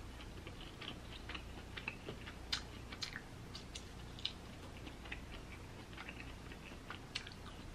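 Faint, scattered wet clicks of a person chewing broiled lobster tail meat and pulling it apart with their fingers, over a faint low hum.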